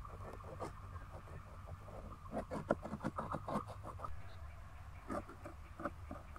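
A metal knife sawing through baked pizza crust in a metal baking tray: a run of short crunching and scraping strokes, busiest about halfway through, over a low steady rumble.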